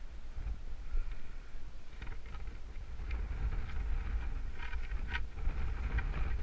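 Wind buffeting the camera's microphone: a low, uneven rumble, with a few faint brief rustles about five seconds in.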